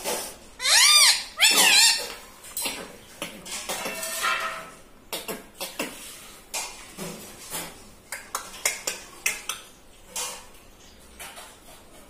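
Rose-ringed parakeet giving two quick runs of rapid chirping calls near the start, followed by scattered sharp clicks and taps.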